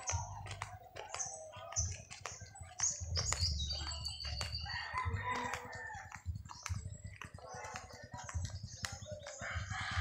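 A rooster crowing, with chickens clucking.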